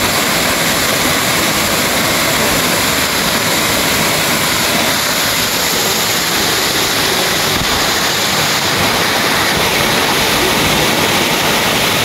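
Waterfall pouring over a rock face onto boulders and into a pool: a steady, loud rush of falling water.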